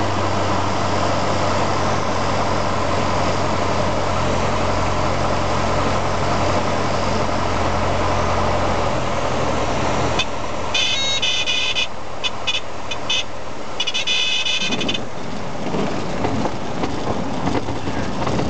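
Beagle Pup light aircraft landing, heard from the cockpit. The single piston engine runs steadily on final approach and is throttled back about nine seconds in. A high buzzing warning tone, the stall warner, sounds on and off for several seconds as the plane flares and touches down. Then the wheels rumble and rattle over the grass runway.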